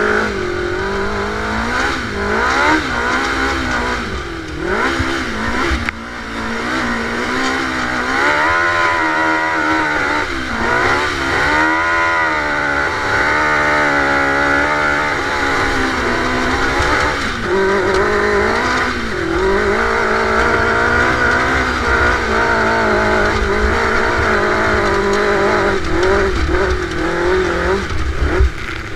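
Dune buggy engine running under load, its pitch rising and falling again and again as the throttle is worked, with a strong low wind rumble on the microphone.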